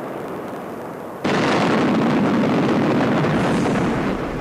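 A sudden loud explosion about a second in, its rumble holding for two seconds or so and then easing off.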